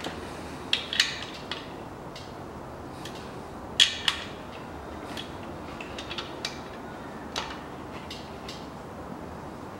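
Hand tools clicking and clinking against the crankshaft main bearing cap bolts as they are tightened down in the engine block. The clicks are irregular, with two sharp knocks about four seconds in.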